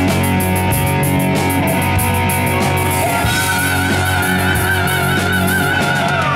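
Heavy metal band playing live: distorted electric guitars, bass and drums with singing, a long, wavering high note held from about halfway through until near the end.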